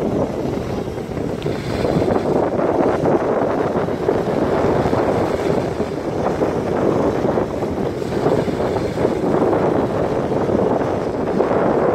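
Strong wind buffeting the microphone over a steady rush of sea water, as on a camera carried along while kitesurfing. It is a loud, unbroken roar with no engine tone in it.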